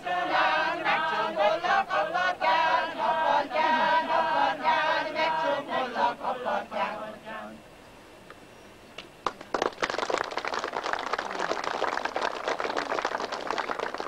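A group of voices singing a Hungarian folk song, the singing ending about halfway through. After a short pause comes about four seconds of dense crackling that reads as applause.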